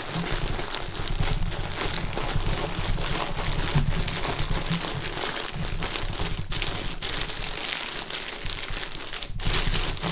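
Clear plastic mushroom grow bag crinkling and rustling continuously as gloved hands squeeze and knead the mycelium-colonized substrate inside to break it up and spread it. It gets louder right at the end as the bag's top is lifted and handled.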